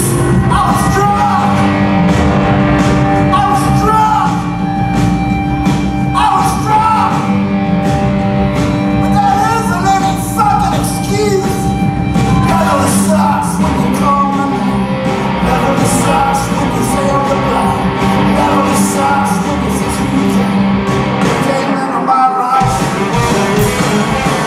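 A live rock band plays loudly, with electric guitars, bass and drums under a sung lead vocal. The bass and drums drop out for a moment near the end, then come back in.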